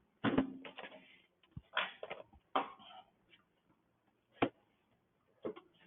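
Scattered knocks and short clatters of small engine parts and tools being handled and set down on a workbench. There is a cluster in the first three seconds, then single knocks about four and a half seconds and five and a half seconds in.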